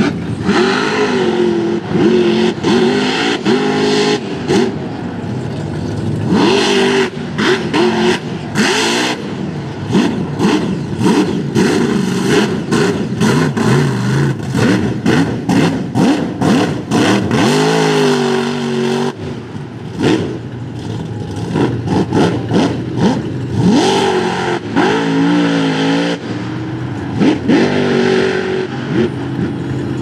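Supercharged 540 cubic-inch big-block V8 on alcohol, with a 14-71 blower, revving hard again and again as the mud truck churns through deep mud. Its pitch keeps surging and falling, and through the middle stretch it is broken by a rapid run of sharp cracks.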